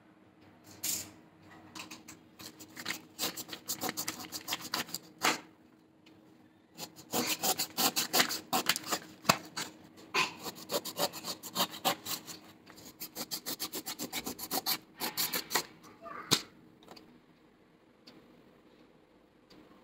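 A knife cutting through raw (unripe) jackfruit: runs of quick rasping strokes with short pauses between them. The last run ends with a sharper stroke, and the sound dies away near the end.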